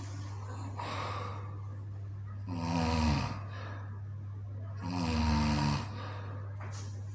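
A sleeper snoring: two drawn-out snores about two and a half seconds apart, each dropping in pitch as it ends, with softer breaths between, over a steady low hum.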